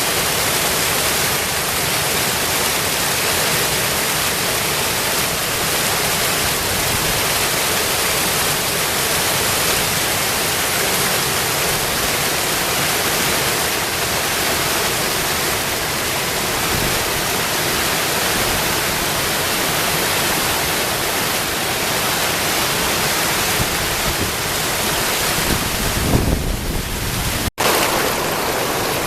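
Small brook rushing over a drop like a little waterfall: a loud, steady water noise. Near the end there is a brief low rumble, then a split-second gap.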